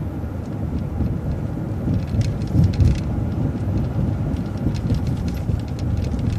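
City transit bus driving, heard from inside: a steady low rumble of engine and road, with light rattles and clicks.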